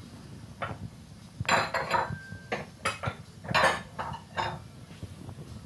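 Bowls and dishes clinking and clattering, a string of short knocks as a bowl is fetched and handled.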